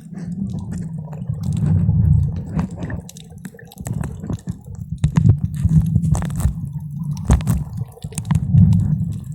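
Seawater heard underwater: a muffled, surging low rumble with scattered clicks and pops, such as moving water and bubbles make against a submerged camera.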